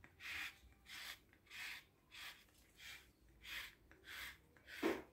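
Lemon peel being zested on a fine rasp grater: faint, regular scraping strokes of the peel across the blade, about one and a half a second.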